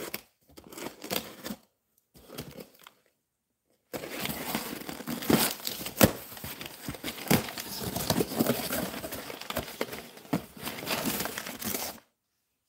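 A taped cardboard shipping box being torn open: packing tape and cardboard ripped and crackling, with crinkling paper. It comes in a few short bursts at first, then runs continuously for about eight seconds with sharp snaps before stopping suddenly near the end.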